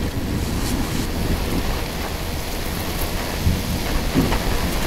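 Heavy thunderstorm rain pouring down in a steady rush, with a low rumble of thunder underneath.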